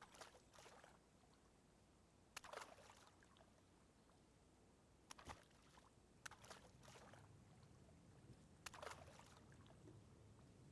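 Faint sloshing and splashing of lake water as a keepnet full of fish is lowered and tipped to release the catch. A few separate splashes come a couple of seconds apart.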